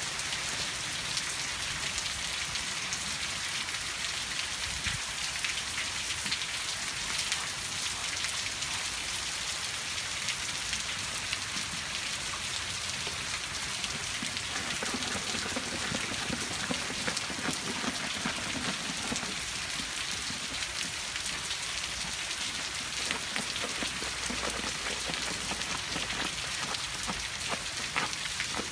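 Steady rain falling: an even hiss of many fine drops that keeps up throughout.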